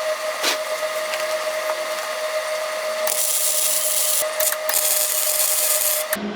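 Electric welding arc crackling and sizzling over a steady high hum. It grows louder and hissier about halfway through, then cuts off abruptly near the end.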